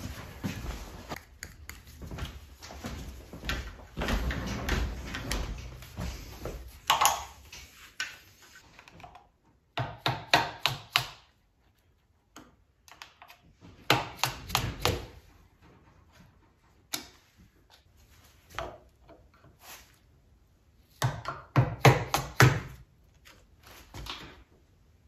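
Clusters of quick, sharp knocks from a soft-faced mallet tapping metal parts of a Bridgeport milling machine to loosen them during disassembly, with the loudest run of blows near the end. Rustling and handling noise fills the first several seconds.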